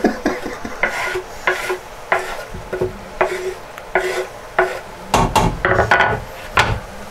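Diced vegetables being stirred and scraped around a cooking pot: a string of short scraping strokes about twice a second, with a few heavier strokes near the end.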